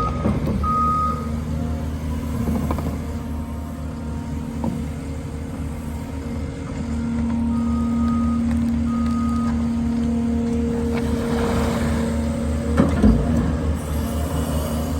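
Diesel engine of road-construction machinery running steadily, with a backup alarm beeping a few times near the start and again in the middle. A brief clank sounds near the end.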